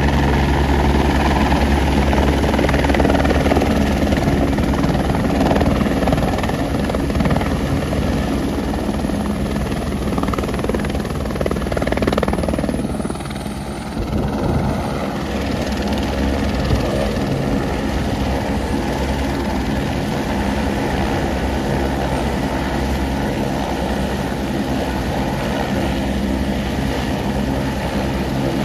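Helicopter rotor and engine running close by, a steady loud drone that dips briefly about halfway through and then carries on.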